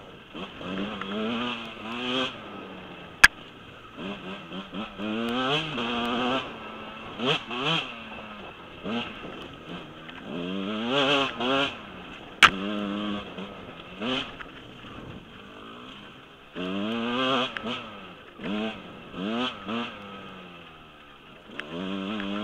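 Husqvarna 125 dirt bike engine revving up and down over and over as the bike is ridden along a trail, with two short, sharp knocks, about three seconds in and near the middle.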